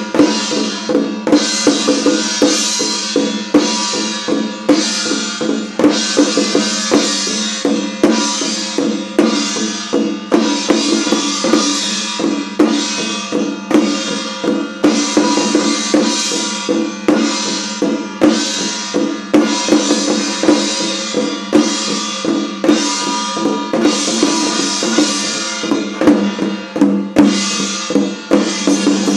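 Chinese ritual drum-and-cymbal percussion for a trance ceremony, played in a fast, steady, unbroken rhythm with a cymbal crash on most strokes over a low ringing tone.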